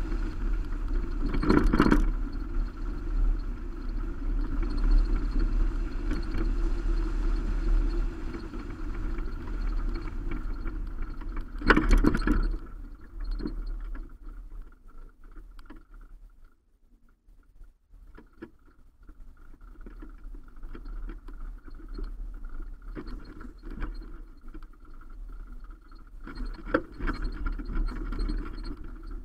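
Subaru Baja driving on a gravel road, heard from a roof-rack camera: steady tyre and road noise with two loud jolts, about two seconds in and about twelve seconds in. The noise dies down for a few seconds near the middle as the car slows at a junction, then builds again.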